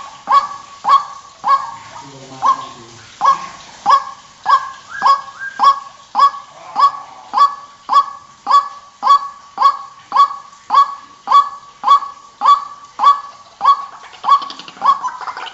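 White-breasted waterhen (ruak-ruak) call played as a bird-catcher's lure: a steady, monotonous run of short, loud, pitched notes repeated nearly twice a second, each starting with a quick upward sweep.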